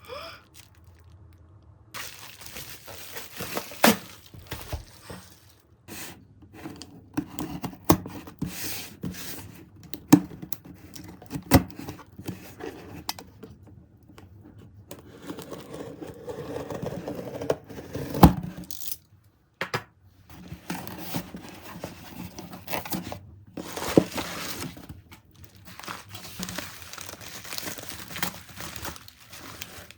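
Packaging crinkling and rustling as it is handled, with scattered sharp clicks and taps; the sharpest tap comes about 18 seconds in.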